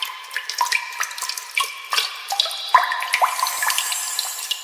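Water dripping and trickling: irregular short plinks, each rising in pitch, several a second, over a light running-water hiss.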